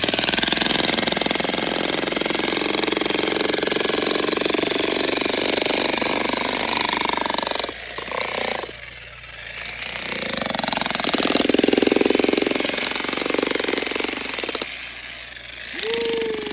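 Jackhammer hammering into rock to free geodes, running in long stretches and stopping briefly twice, about halfway through and near the end.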